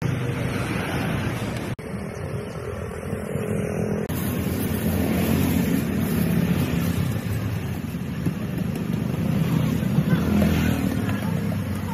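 Street traffic noise dominated by motor vehicle engines running close by: a steady low rumble, briefly dropping out twice in the first four seconds.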